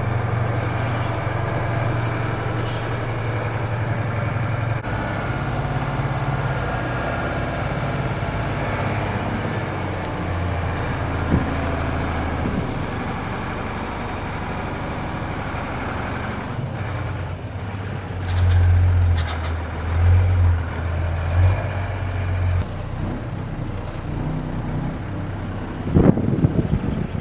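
Mercedes-Benz Unimog U2450 6x6 truck's diesel engine working steadily as it crawls over off-road obstacles, with a short hiss of air about three seconds in. The engine pulls harder in a few surges about two-thirds of the way through, and a clunk comes near the end.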